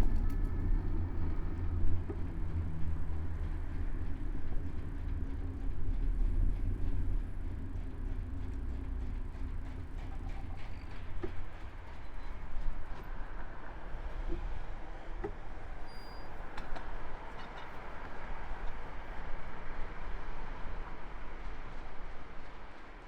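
Continuous low rumble of riding, picked up by a camera mounted on a moving bicycle, heavier in the first half and giving way to a lighter hiss later on, with a few faint clicks.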